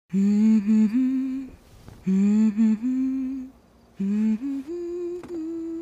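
A woman softly humming a lullaby tune in three short phrases with brief pauses between them.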